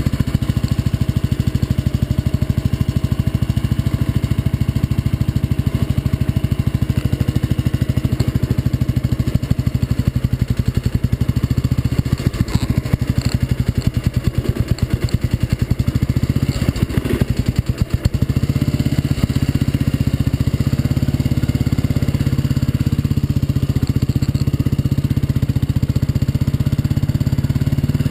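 2001 Royal Enfield Bullet 500's single-cylinder engine running with an even, pulsing beat, mostly at idle. The sound changes about two-thirds of the way through as the bike pulls away and runs at low revs.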